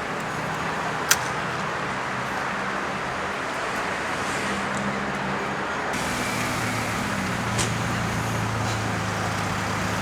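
Urban traffic noise with a vehicle engine idling steadily. A sharp click about a second in, and the background changes abruptly about six seconds in.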